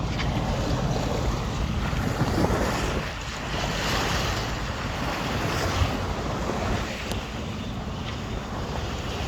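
Wind buffeting the microphone and water rushing past a sailing yacht's hull, with the boat's engine running steadily underneath while motor sailing.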